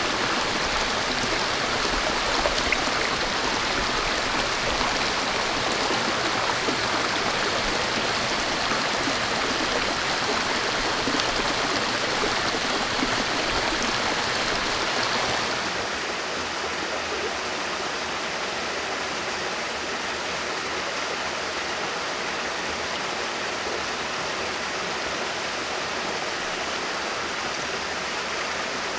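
Steady rush of a shallow rocky stream and small cascade; the water sound drops a little and turns duller about halfway through.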